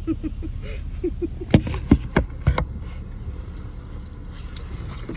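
A steady low rumble inside a car, with three sharp clicks or knocks, about one and a half, two and two and a half seconds in, and a few light high jingling ticks later.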